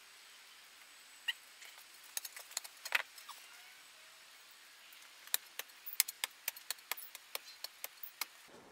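Spade blade chopping into stony soil to dig out a post hole: faint sharp clicks, a few scattered at first, then a quick run of about four a second over the last few seconds.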